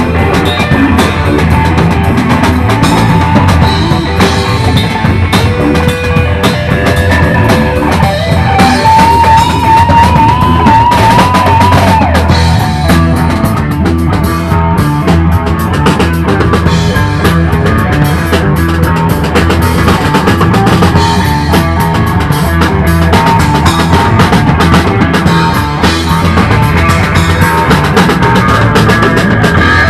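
Live funk-rock band playing an instrumental passage with no vocals: drum kit and electric guitars. A lead line slides up and holds a wavering high note about eight seconds in.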